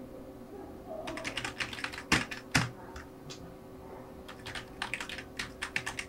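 Typing on a computer keyboard: a run of irregular keystrokes, with two louder key strikes about two seconds in.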